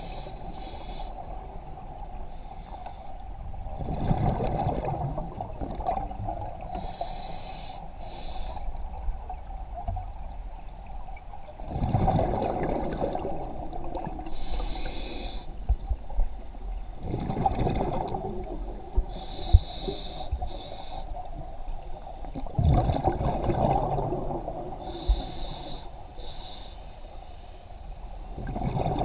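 Scuba diver breathing through a regulator underwater: a hissing inhale, then a rush of exhaled bubbles, in a slow even cycle of about five breaths.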